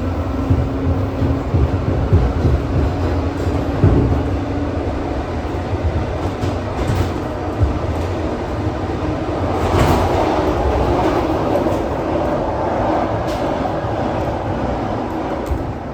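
ED4M electric multiple unit running on the line, heard from on board: a continuous rumble with scattered wheel knocks on the rails. A steady hum fades out after about four seconds, and a rushing noise swells up about ten seconds in.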